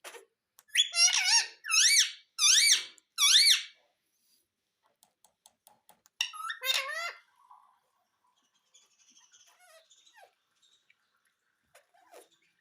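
Pet Indian ringneck parakeet calling: four loud calls in quick succession, then another call about six seconds in, with faint clicks between.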